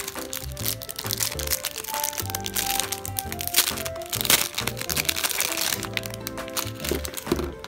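Clear plastic packaging crinkling and crackling as it is handled, over background music.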